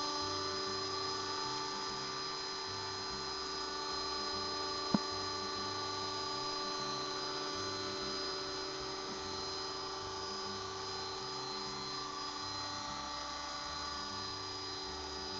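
Electric RC helicopter, a Thunder Tiger Mini Titan in an Agusta 109 scale body, hovering: a steady high-pitched motor and gear whine with rotor hum. One sharp click about five seconds in.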